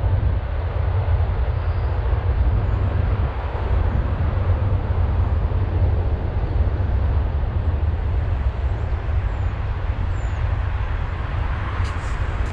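Wind buffeting an outdoor microphone: a steady, gusty low rumble with noise over it, and a few faint high chirps.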